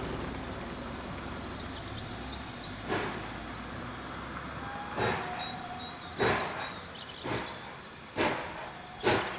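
GWR Manor class steam locomotive 7820 Dinmore Manor starting away from a stand. Its exhaust chuffs begin about two seconds apart and quicken steadily as the engine gathers speed.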